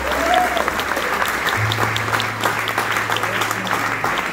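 Concert audience applauding after a song, with one clapper close by ticking out through the crowd's clapping. A low steady tone from the stage runs under it for a couple of seconds in the middle.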